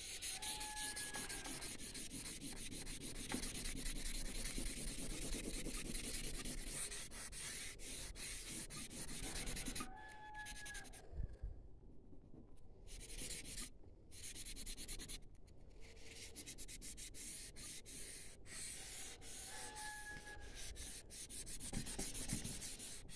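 Folded paper tissue rubbing back and forth over pencil shading on paper to blend the graphite, a steady scrubbing that stops briefly a little before the middle and then carries on.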